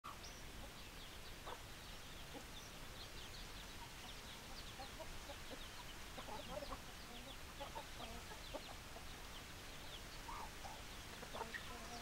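Chicken flock: a steady scatter of short, high chick peeps, with hens giving occasional soft low clucks.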